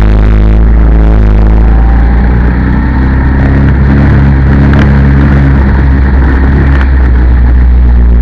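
Go-kart engine heard from onboard at racing speed, loud and steady under heavy low rumble, its note dropping slightly about two and a half seconds in and then holding.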